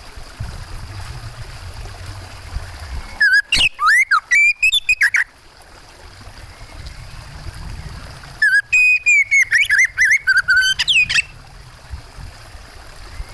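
Oriental magpie-robin (kacer) singing in two loud bouts of quick, varied whistled phrases, a few seconds apart, over a steady low background of running water.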